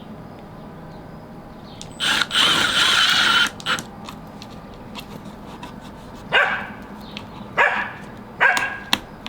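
A dog barking: a loud drawn-out call lasting over a second about two seconds in, then four short barks spaced about a second apart.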